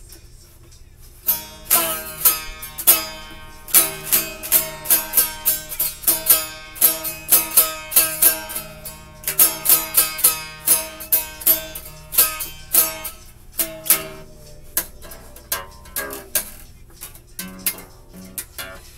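Acoustic guitar played by plucking, a quick run of single notes ringing one after another. It starts about a second in and thins out and quiets in the last few seconds.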